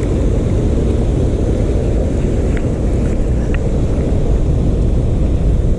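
A steady low roar of fast, flood-swollen river current, with a few faint small ticks over it.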